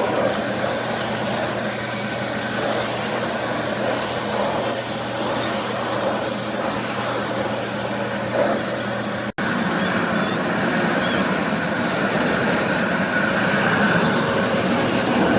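Aspiron canister vacuum cleaner running steadily, a loud even rush of air with a low motor hum. It cuts out for an instant about nine seconds in, then carries on.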